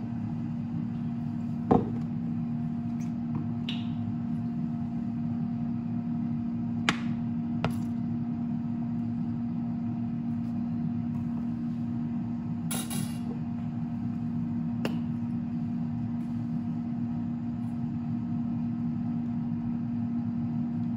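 Steady low mechanical hum, with a few light clicks and taps of a metal spoon and a sauce bottle against a ceramic plate, the sharpest about two seconds in.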